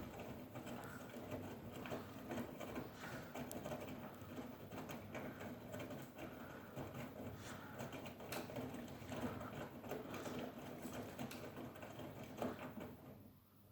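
Siemens front-loading washing machine drum turning in the wash phase of a 60 °C white wash, wet laundry tumbling and water splashing in a patter of light knocks. The drum stops near the end.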